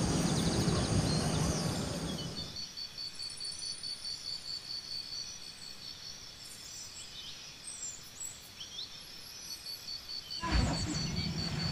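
Outdoor ambience: low wind rumble on the microphone for the first two and a half seconds, then a quieter stretch where an insect's steady, evenly pulsed high trill and a few short bird chirps are heard. The low rumble returns near the end.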